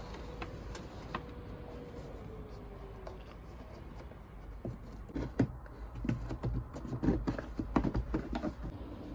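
Irregular clicks and taps of plastic interior trim and headliner as a cable is pushed into the gaps by hand, starting about halfway through and coming in quick clusters.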